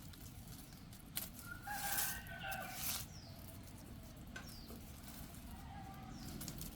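Faint animal calls: a drawn-out call from about one and a half to three seconds in, then a few short, high falling chirps.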